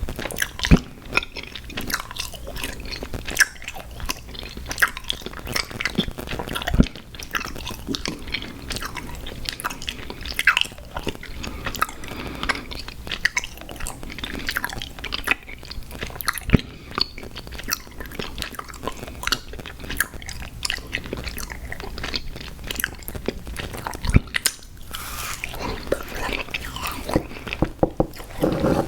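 Close-miked chewing of sour gummy worms cereal: continuous wet, sticky chewing with irregular crunches and crackles, and a few sharper bites standing out.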